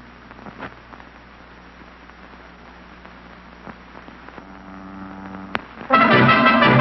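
Old film soundtrack hiss and low hum with a few faint crackling clicks and a faint held tone, then loud music starts abruptly near the end.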